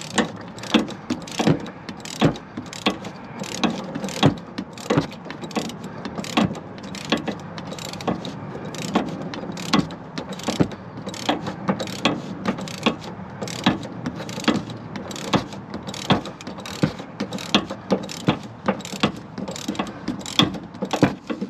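Hand socket ratchet clicking in a quick, even rhythm, about three clicks a second, as it is swung back and forth tightening the nut on a Sumo Springs suspension bumper mount.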